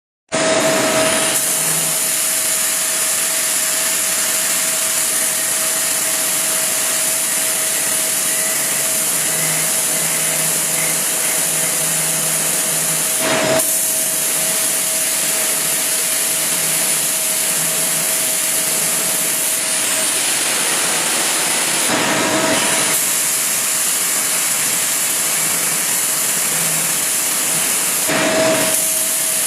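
Metal 3D printing machine running with a loud, steady hiss and a constant hum-like tone. Three brief louder surges come through, about a third of the way in, near three-quarters, and near the end.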